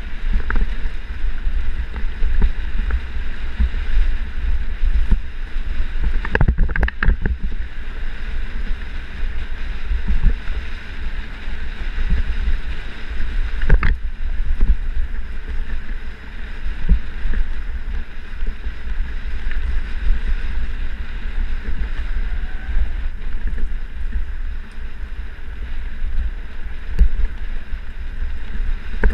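Mountain bike riding fast down dirt singletrack: wind buffeting the camera microphone over the rumble and rattle of the bike on the trail. A few sharp knocks from bumps come about seven seconds in and a single one about fourteen seconds in.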